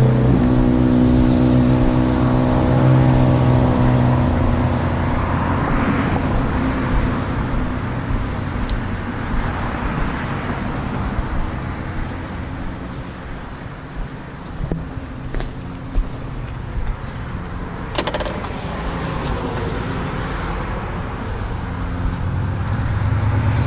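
Vehicle engine running with a low hum, easing off after about four seconds and building again near the end, with a run of light, rapid ticking in the middle.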